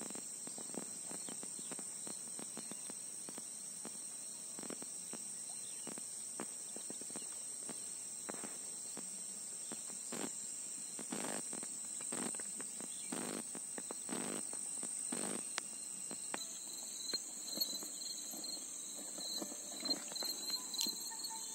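Steady high-pitched insect chorus, with scattered soft knocks and rustles. From about three-quarters of the way in, a second, pulsing chirp joins in.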